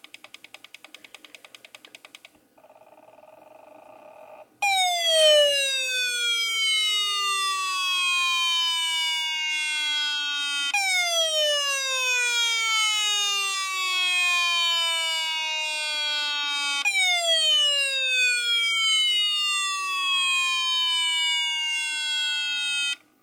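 IBM ThinkPad 560 putting out strange electronic sounds through its built-in speaker. First comes a fast pulsing buzz, then a short steady tone, then three long tones that each glide down in pitch for about six seconds before jumping back up high, like a falling siren.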